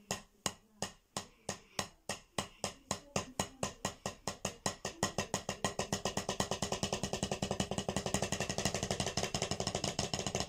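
Drumsticks striking a practice pad in alternating single strokes, a drum rudiment exercise. The strokes start slow and speed up steadily over the first six seconds or so into a fast, even stream.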